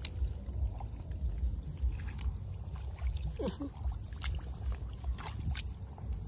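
A hand sloshing and patting in shallow muddy paddy water among rice straw: scattered small splashes and trickles over a low rumble.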